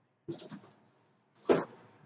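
A few short knocks and rustles of objects being handled and set down, the loudest about one and a half seconds in.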